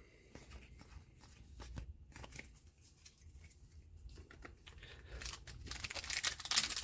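Trading cards handled with faint clicks and slides, then a booster pack's wrapper crinkling and tearing open from about five seconds in.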